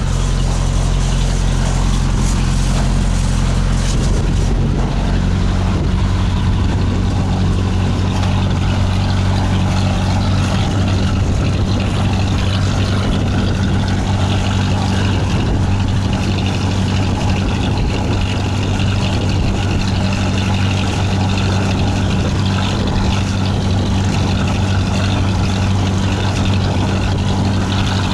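Sailboat's inboard diesel engine running steadily under way, a low hum with a change in engine speed about four to five seconds in.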